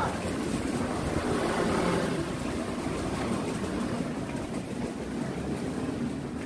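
Steady rumble of street traffic: motor vehicles running past on the road beside the arcade.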